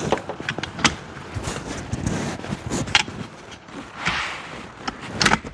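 Scattered clicks and knocks of the awning and its metal brackets being handled and shifted on a roof-rack crossbar, with wind on the microphone.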